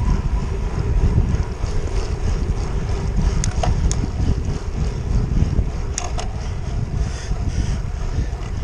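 Wind buffeting the microphone of a handlebar-mounted GoPro on a road bike moving along a wet road, a steady low rumble of rushing air. A few short clicks come about three and a half seconds in and again about six seconds in.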